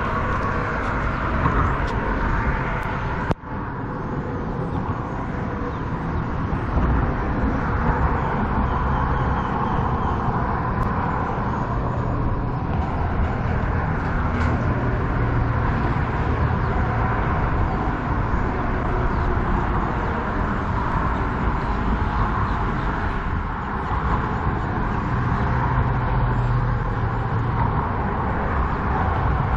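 Steady outdoor background noise with a low rumble, like distant road traffic, broken by a brief drop-out about three seconds in.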